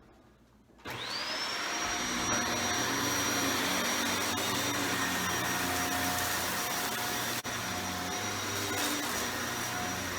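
Shark Powered Lift-Away upright vacuum switched on about a second in on its carpet setting, its motor whine rising quickly to speed and then running steadily.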